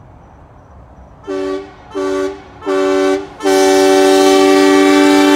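A two-tone vehicle horn honking three short times, then sounding one long held blast from about three and a half seconds in.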